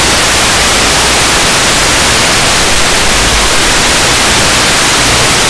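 Loud, steady static hiss with no other sound, the kind an analog FPV video receiver puts on its empty audio channel.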